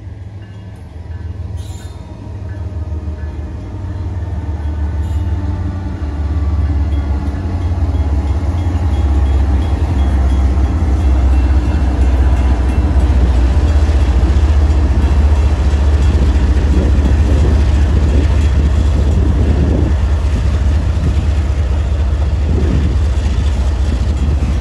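Diesel-electric freight locomotives, GE Evolution-series units, passing close by with a deep engine drone that grows louder over the first ten seconds. It then holds as a steady rumble as the locomotives and the stack cars roll past.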